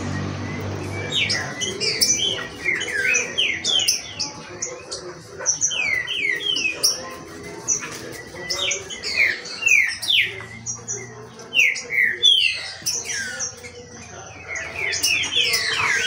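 Caged green-winged saltators (trinca-ferro) singing and calling in a warm-up (esquenta) session. They give quick runs of short, downward-sliding whistled notes, one cluster after another.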